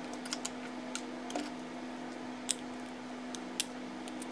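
Light plastic clicks and taps as the parts of a disassembled pager, its plastic casing and circuit boards, are handled and set down: about half a dozen short clicks, the sharpest about two and a half and three and a half seconds in, over a steady low background hum.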